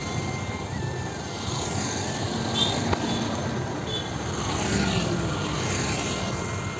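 Road traffic on a town road: a steady rumble of passing motorbikes and a car, swelling louder as the car passes close about four and a half to six seconds in. There is a single sharp click near the middle.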